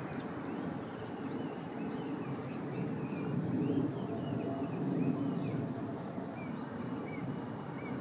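Steady low outdoor rumble with faint, brief high bird chirps scattered throughout.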